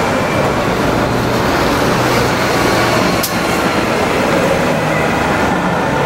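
Heavy city traffic at a busy intersection: trucks and a bus running past at low speed in a steady din of engines and street noise, with a brief sharp click about three seconds in.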